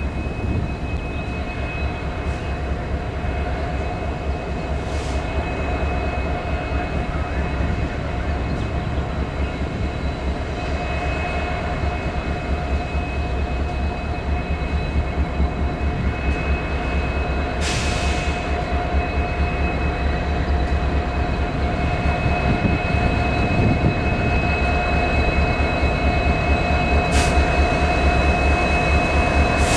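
Diesel freight locomotives approaching on the line, a steady low rumble that grows gradually louder as the train nears, with a steady high tone running through it.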